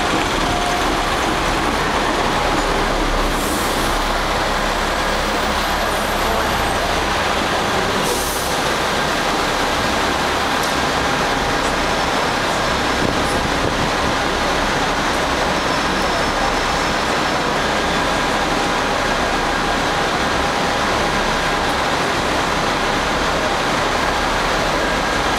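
Steady, dense city traffic and tram running noise heard from aboard a Hong Kong double-decker tram, with two brief hisses about three and eight seconds in.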